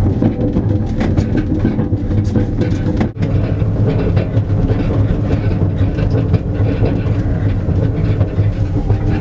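A bicycle-towed trailer cart rolling along an asphalt road: a steady rumble and rapid rattling from its wheels and frame, with a brief break about three seconds in.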